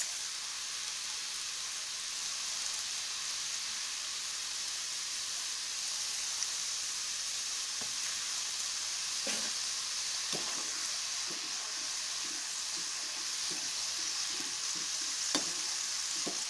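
Kurkure dough strips sizzling steadily as they deep-fry in hot oil in a kadhai. In the second half a slotted spoon stirs them, with a few light clinks against the pan.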